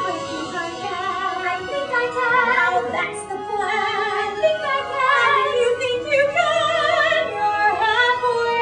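A woman singing a musical-theatre song with a wide, wavering vibrato, over instrumental accompaniment.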